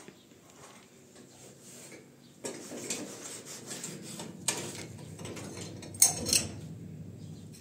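A scouring pad scrubbing the metal burner caps of a gas stove, starting a couple of seconds in, with a few sharp metal clinks as the burner parts knock together.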